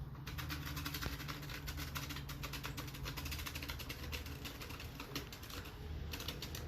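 Homemade sound effect imitating a boat motor: a rapid, steady rattle of clicks over a low hum.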